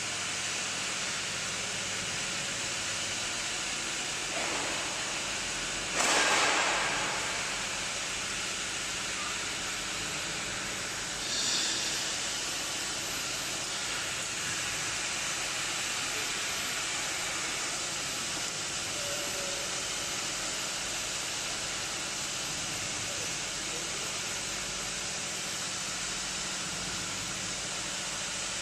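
Stainless steel tube welding machine running, a steady hiss throughout. A sudden louder burst of hiss comes about six seconds in and dies away within a second or so, with a shorter one near twelve seconds.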